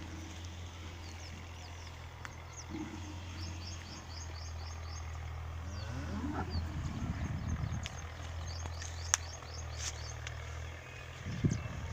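A bull lows once about six seconds in and gives a shorter low grunt near the end, over a steady low hum, with small birds chirping.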